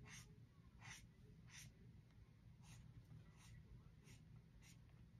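Felt-tip marker drawing short, faint strokes on sketchbook paper, about seven of them at a steady pace of roughly one every two-thirds of a second.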